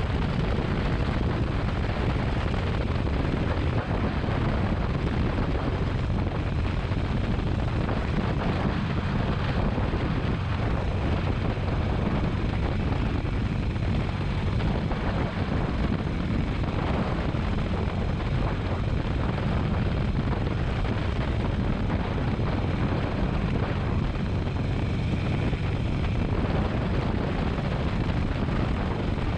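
Motorcycle on the move: a steady, loud rush of wind and engine rumble, heaviest in the low end, with no let-up.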